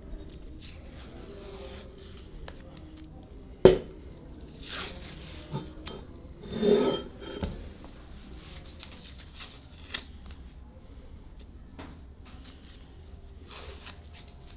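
Small handling noises on a workbench: light rubbing and scraping strokes with scattered clicks, and one sharp knock a little under four seconds in.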